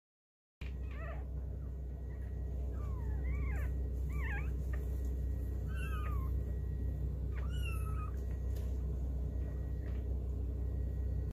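Newborn puppies squeaking and whimpering: five or six short, high cries that rise and fall in pitch, a second or two apart, over a steady low hum.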